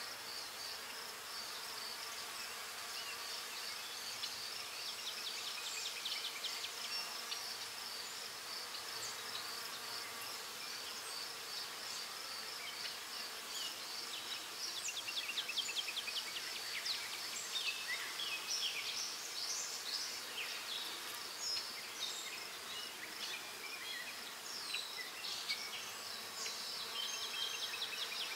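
A steady high-pitched insect trill that pulses without a break. From about six seconds in, short high chirps and ticks break in, thickest in the second half.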